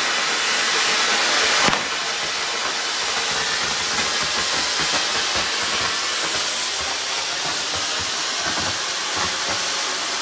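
Anar (flower pot) ground fountain firework hissing steadily as it sprays sparks, with one sharp click a little under two seconds in.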